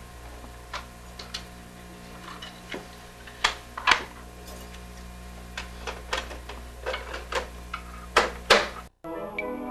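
A cassette player being handled: scattered clicks and knocks as its buttons and parts are worked, the loudest a few near the middle and a close pair near the end, over a steady low hum. After a brief dropout just before the end, music starts playing from it.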